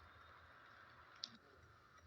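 Near silence: a faint steady hiss with one short, sharp click a little past halfway.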